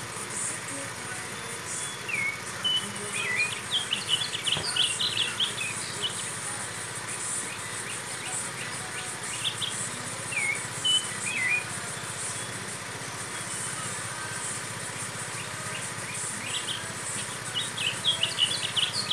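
Caged azulejo, a blue songbird, singing in three spells of quick twittering chirps that rise and fall, the fullest spells near the start and near the end. A steady high insect hiss runs underneath.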